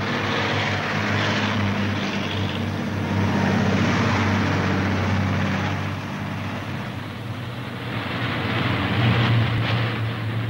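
Motor vehicle engines running in a steady low drone over a hiss of road noise, swelling about three seconds in and again near the end.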